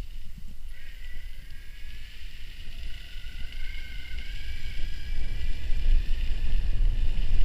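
Wind buffeting the microphone over the high whine of an electric mountain bike's motor, which rises in pitch about a second in as the bike speeds up.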